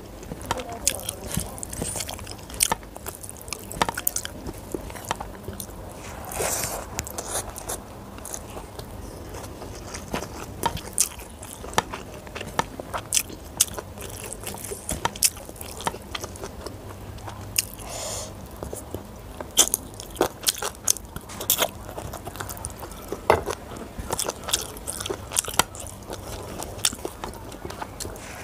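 Close-miked chewing and mouth sounds of a person eating rice and curry by hand, with frequent irregular sharp clicks and smacks.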